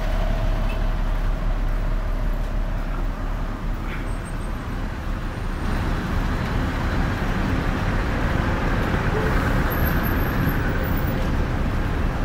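Steady street traffic noise from cars and buses.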